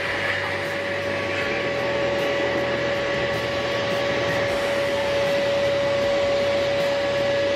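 Steady roar of a large warship sliding down its slipway at launch, with heavy drag chains scraping along the ground. A single steady high tone is held throughout.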